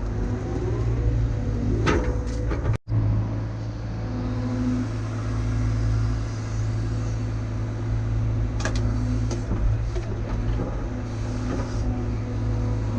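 CAT excavator's diesel engine running steadily under load, with a few metallic clanks as the machine digs.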